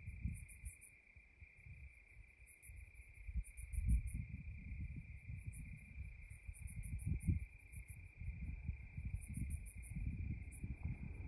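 Night insects calling: a steady, unbroken cricket trill with clusters of much higher, rapid chirping pulses every second or two. Beneath them runs a low, uneven rumble.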